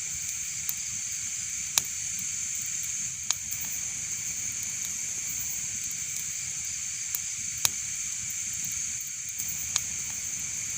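Wood fire burning with a steady high hiss and about six sharp crackling pops, the loudest about two seconds in and near the middle.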